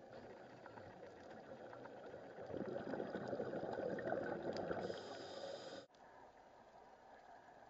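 Underwater camera sound of a scuba diver's exhaled bubbles, a bubbling rush that swells about two and a half seconds in and cuts off abruptly near six seconds, leaving a quieter steady underwater hiss.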